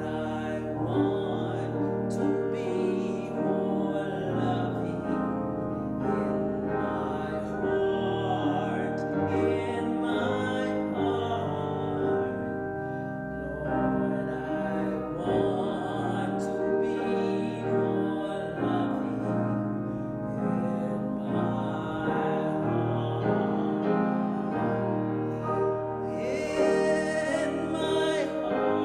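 Sung music with piano accompaniment: a singing voice holding long, wavering notes over sustained chords.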